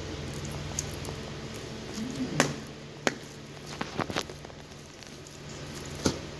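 Raw chicken pieces squashed under the flat soles of leather boots: soft wet squishing broken by several sharp cracks and clicks, the loudest about two and a half seconds in.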